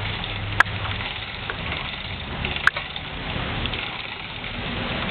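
Steady hiss of heavy rain with a low hum, broken by two sharp clicks about two seconds apart.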